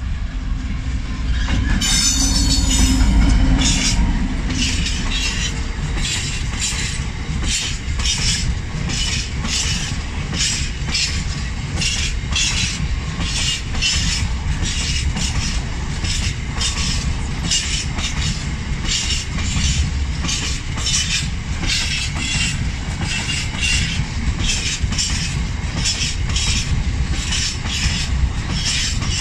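A Class 66 diesel-electric freight locomotive passes close by, its two-stroke V12 diesel loudest about two to four seconds in, with a brief high wheel squeal. A long train of bogie hopper wagons follows, its wheels clicking in steady repeating groups over the rail joints of the level crossing.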